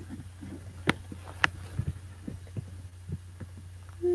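Steady low electrical hum from the computer recording setup, with two sharp clicks and several soft knocks as the computer and webcam are handled. Near the end a voice starts humming one steady note.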